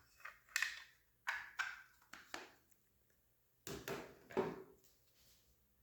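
Hard plastic clicks and rattles from a paintball marker's magazine being handled and worked, coming in a few short clusters.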